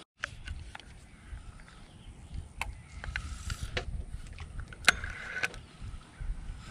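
A run of sharp, irregular clicks and knocks over a low rumble, the loudest about five seconds in.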